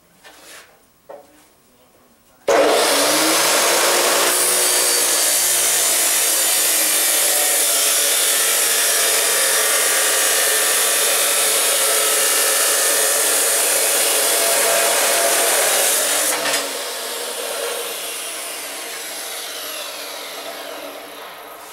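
Abrasive chop saw starting up with a short rising whine, then cutting through steel angle iron with a loud, steady grinding hiss. About two-thirds of the way through it is switched off and the disc coasts down with a falling whine.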